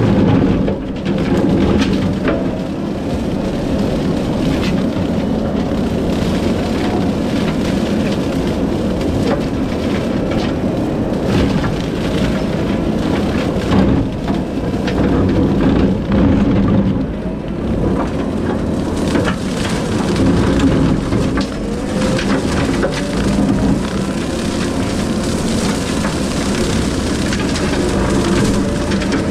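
Kubota SVL75-2 compact track loader's diesel engine running hard while its Skidpro brush cutter head chews through brush: a steady, loud machine rush with frequent cracks and snaps of wood.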